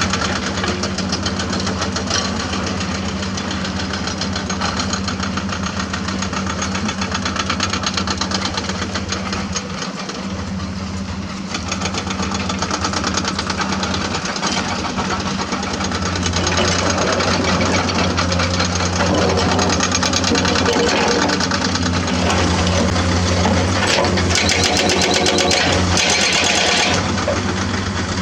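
Hydraulic excavator's diesel engine running steadily under load, with a dense clatter over a low hum. It gets louder from about halfway through.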